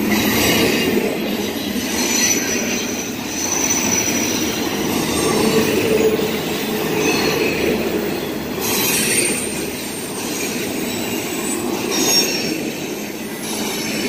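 Long freight train of double-stack intermodal well cars rolling past, steel wheels on the rails making a steady rumble, with high-pitched wheel squeal that comes and goes.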